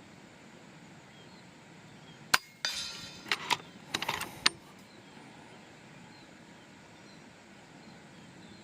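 FX Impact M4 PCP air rifle firing once with a single sharp crack, followed by a quick run of metallic clicks and clacks for about two seconds.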